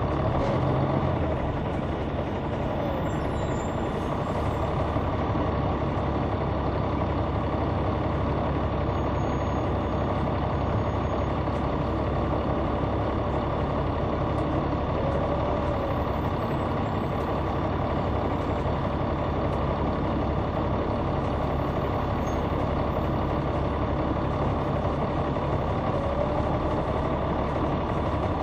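Caterpillar C9 ACERT inline-six diesel engine of a 2004 Neoplan AN459 articulated bus running steadily, heard from inside the bus, with a few faint rising and falling whines.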